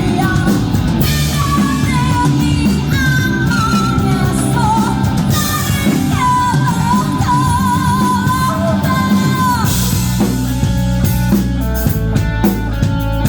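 Rock band playing live: a singer holds a sung melody over guitar, bass and drums. The singing stops about ten seconds in and the band plays on.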